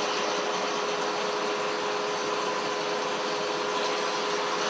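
Crane's engine running steadily, a constant machine drone with a steady whine over a hiss of noise.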